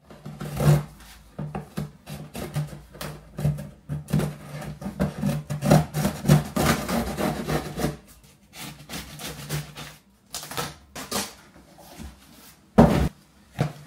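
A cardboard shipping box being cut open and handled: a box cutter slicing through tape, with irregular scraping and rustling of cardboard. It then goes quieter as the inner box is pulled out, with two sharp knocks near the end.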